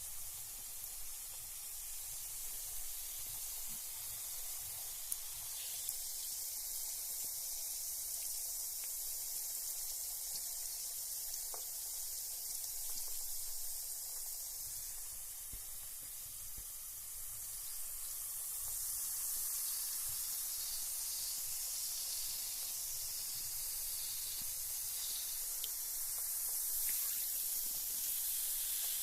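Carbonated bath bomb fizzing in bathwater: a steady high-pitched hiss of bursting bubbles with faint crackles, growing a little louder in the second half.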